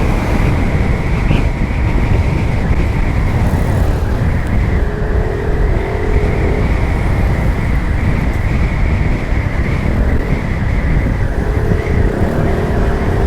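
Riding a Yamaha Mio i 125 scooter downhill: steady wind rush and road noise with the scooter's engine running, and a faint humming tone that comes in twice.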